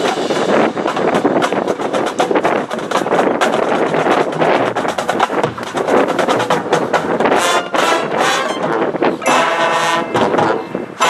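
Marching band playing: a steady stream of drum hits, with held brass chords coming in about nine seconds in.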